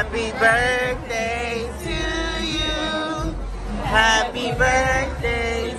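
A group of voices singing a birthday song together, in long held notes.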